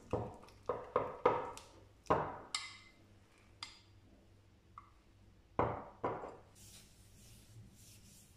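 A small utensil knocking and clinking against a ceramic cup while a butter, flour and oil paste is stirred in it: about a dozen sharp taps with a short ring, in irregular clusters. After about six and a half seconds the taps stop and a soft, high rustle of hands sliding over fabric follows.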